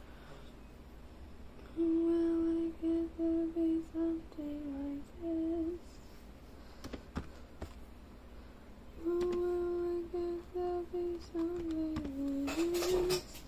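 A person humming a short tune twice, a few seconds apart: a run of repeated notes on one pitch that dips briefly lower and comes back. A few soft clicks come between the two phrases, and there is a rustle near the end.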